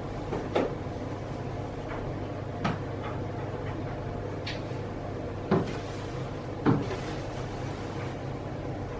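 Four short knocks or clunks, a second or more apart, over a steady low hum, with a brief higher-pitched sound in between.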